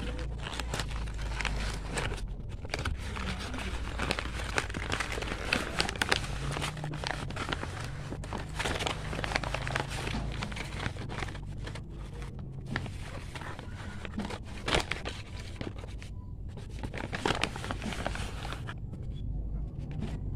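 Brown kraft-paper bag crinkling and crumpling as it is handled and opened by hand, an irregular run of rustles with a few sharper, louder crackles.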